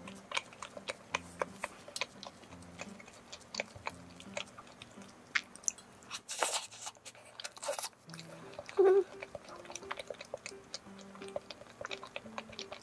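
Close-up eating sounds: biting into a sweet potato mont blanc tart with a crumbly crust and chewing, with many wet mouth clicks. There is a loud crunchy bite about six to eight seconds in and a brief pitched sound near nine seconds. Soft background music plays underneath.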